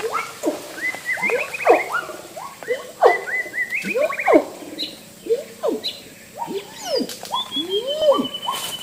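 A chorus of wild animal calls in tropical forest: many overlapping calls, each rising and falling or sliding down in pitch. A long steady high whistle joins them about seven seconds in.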